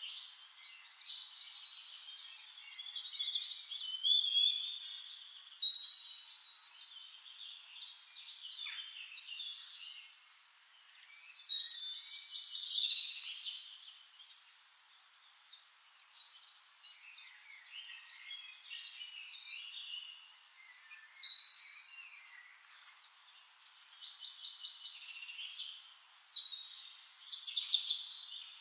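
Several songbirds singing and calling at once: overlapping chirps, trills and high whistled phrases, with louder passages of song coming and going every few seconds.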